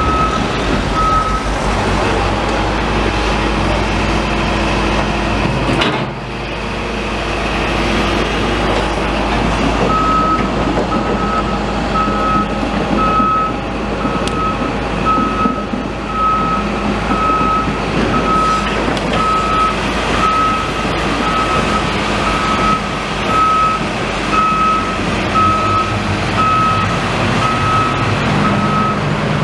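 A heavy vehicle's reversing alarm beeping at an even pace, about one and a half beeps a second, over a running diesel engine and street traffic. The beeps stop about a second in and start again about ten seconds in.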